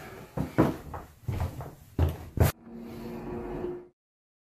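A handful of sharp knocks and thumps, like cabinet doors and cookware being handled, over about two and a half seconds. Then a steady low hum with two faint steady tones while a cast-iron skillet sits on an electric cooktop. The sound cuts off suddenly near the end.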